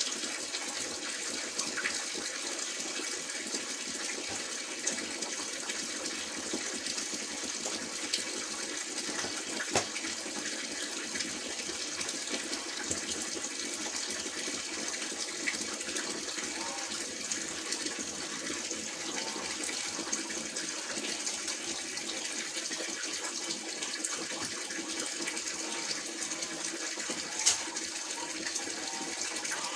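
Steady running water from a tap, with a sharp click about ten seconds in and a louder one near the end.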